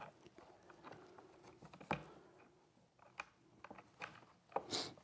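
Light, scattered clicks and taps of small metal bolts being handled and fitted through holes in a wooden tray top and into a T-track. A sharper click comes about two seconds in, and a brief rustle or scrape near the end.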